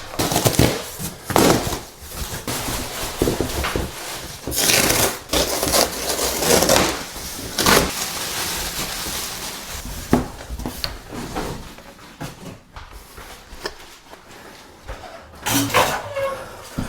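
Irregular knocks, scrapes and rustles of close-range handling work, quieter for a few seconds near the end.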